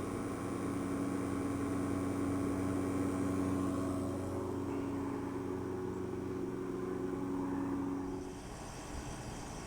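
Refrigeration vacuum pump running with a steady motor hum while evacuating an air-conditioning line set; it shuts off a little over eight seconds in.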